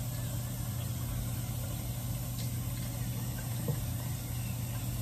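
Electric facial cleansing brush running with a steady low hum as it is worked over lathered skin.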